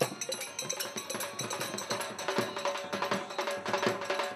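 Rajasthani folk music: rapid, dense clacking hand percussion and a barrel drum, over a steadily held melodic note.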